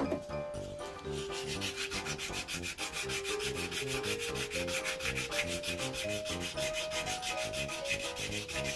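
Sandpaper rubbed quickly back and forth around the metal shaft of a ratcheting screwdriver, a fast scratching rhythm of several strokes a second. It opens with one sharp knock.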